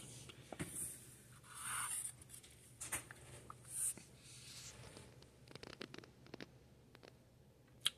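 Faint rustling and scratching: a few soft swells in the first four seconds, then a scatter of light ticks, like handling noise in a small room.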